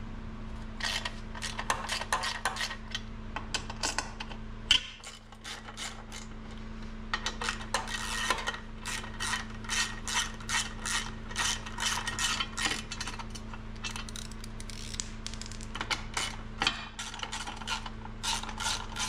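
Hand ratchet on a 5 mm Allen bit, clicking in quick runs as bolts are unscrewed, with a short pause about five seconds in.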